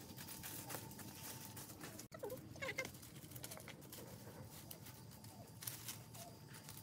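Dry leaf litter and twigs rustling and crackling under feet and handling. A little after two seconds in, a brief run of short, high chirping animal calls.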